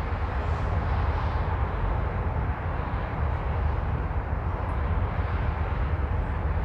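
Steady low rumble and noise of a moving vehicle.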